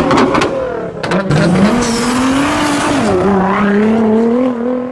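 Sports car engine revving, its pitch climbing, dropping about three seconds in and climbing again, with a high tyre-squeal hiss over it, as in a burnout. A few sharp clicks come right at the start.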